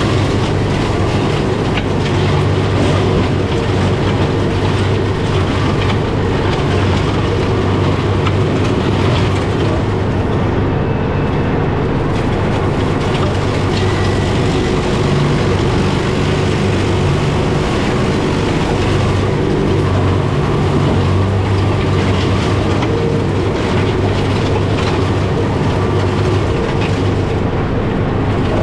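John Deere 4066M tractor's diesel engine running steadily under load, driving a Fieldmaster GM180BB flail mulcher that is shredding gorse.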